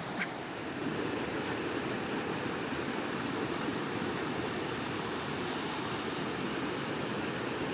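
Steady rush of flowing water from the Banias stream, with a brief high squeak just after the start.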